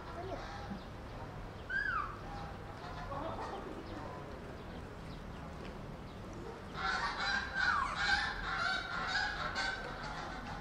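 Animal calls: a single short falling call about two seconds in, then a run of overlapping calls from about seven seconds until near the end.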